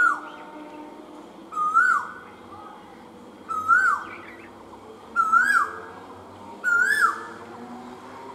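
A bird calling repeatedly: five loud calls about every second and a half to two seconds, each a short whistled note that rises and then drops away sharply.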